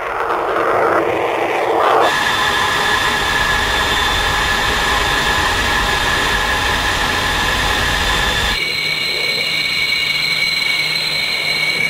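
Sukhoi Su-34's twin jet engines: about two seconds of rushing jet noise, then a steady high-pitched whine over a low rumble as the bomber takes off. About three-quarters of the way through, the whine jumps to a higher pitch.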